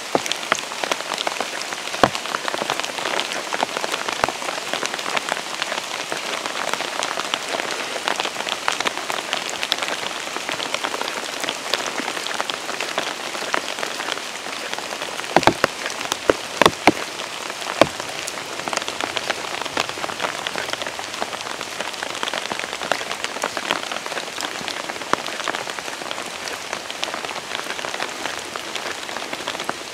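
Steady rain falling, a dense patter of drops, with a handful of louder taps a little past the middle.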